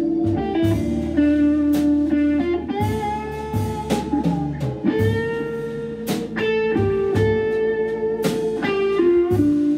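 Live organ-trio jazz in a blues groove: Hammond B3 organ holding chords over a low bass line, with guitar and a drum kit keeping time.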